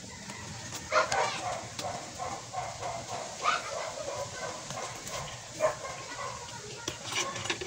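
A dog barking several times in short separate barks, the loudest about a second in.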